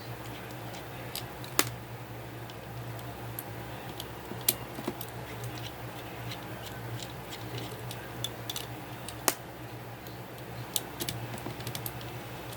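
Scattered small clicks and ticks of a plastic Transformers action figure's leg being taken apart by hand, with three louder sharp clicks at about one and a half, four and a half and nine seconds in. A steady low hum runs underneath.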